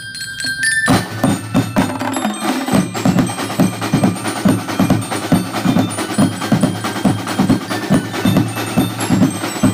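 Drum and lyre band playing: marching snare and bass drums beat a steady rhythm while flat-laid bell lyres (glockenspiel-type metal bars) ring out the melody. After a short break at the start with only the lyre tones ringing, the drums come back in about a second in.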